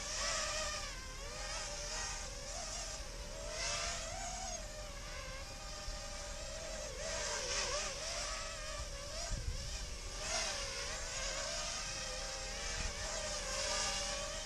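Motors of an XHover Stingy drone buzzing, the whine's pitch wavering up and down constantly as the motor speed changes, with several brief louder surges.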